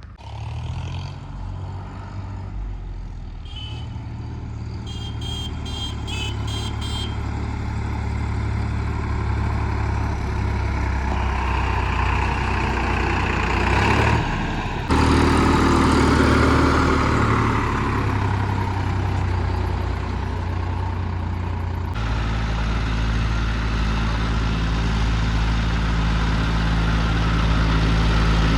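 Heavy diesel engines running steadily, with a short string of high beeps a few seconds in and the engine sound swelling under load in the middle. The sound changes abruptly twice.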